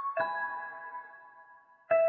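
Slow, soft lullaby music of struck, ringing notes. A chord sounds just after the start and fades away, and another is struck near the end.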